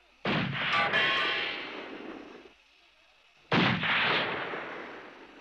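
Two loud blasts about three seconds apart, each dying away over about two seconds. The first has a second hit about a second in.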